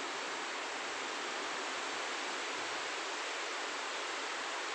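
Steady, even background hiss with no other sound in it.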